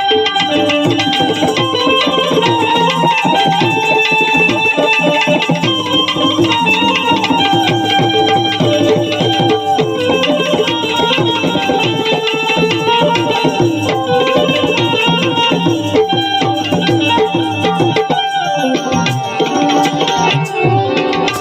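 Instrumental interlude of Gujarati devotional bhajan music: tabla playing a steady rhythm under a sustained melodic line.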